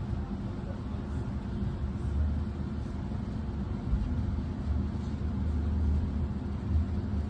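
Regional train heard from inside the passenger car while under way: a steady low rumble of the running gear with a hum, slowly getting louder as the train picks up speed.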